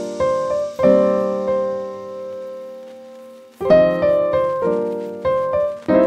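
Solo piano music: soft notes and chords struck a few at a time and left to ring out, dying away in a lull about halfway through before new notes come in.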